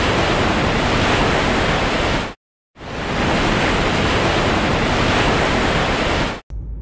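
Loud steady roar of wind buffeting the microphone together with water rushing past the hull of a moving boat. It breaks off into a short silence about two and a half seconds in, then cuts off suddenly just before the end.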